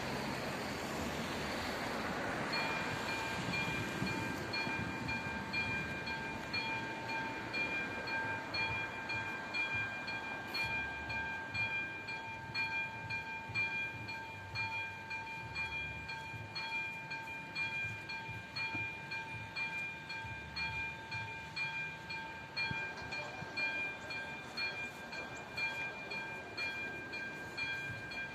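Railway level-crossing warning bell starting about two and a half seconds in and ringing on steadily in an even, repeating electronic ring, signalling that a train is approaching and the crossing is closing. A car drives past at the very start.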